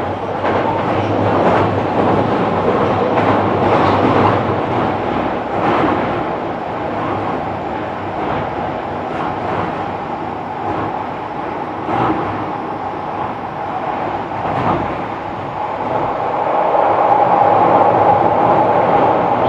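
Kobe City Subway 6000 series train running, heard from inside the car: a steady rumble of wheels on rail with occasional clicks over rail joints. A steady tone near the end grows louder.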